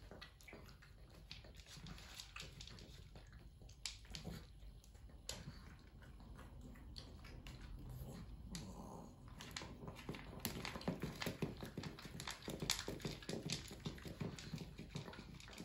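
A pug eating dry kibble from a bowl, crunching in quick irregular clicks that grow denser and louder after about ten seconds.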